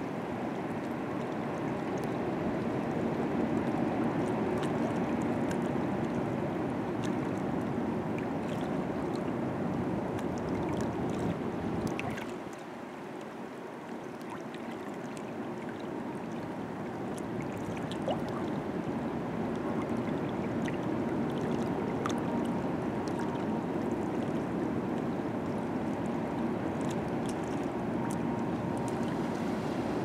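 River water washing and lapping against shoreline rocks, a steady rush with small splashes that eases for a couple of seconds about twelve seconds in and then builds again.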